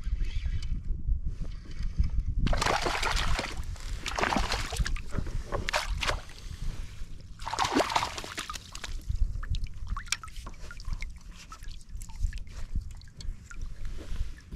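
Water splashing and sloshing beside a kayak as a small hooked fish is brought to the surface. There are several splashes in the first half, then light clicks and knocks over a low steady rumble.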